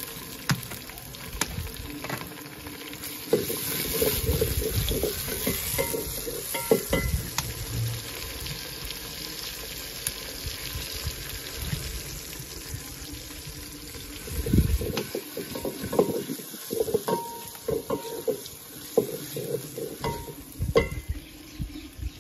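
Kitchen utensils being handled: a metal ladle knocking and scraping in a steel pot, with plastic baskets and dishes set down, in irregular clinks and knocks over a steady hiss.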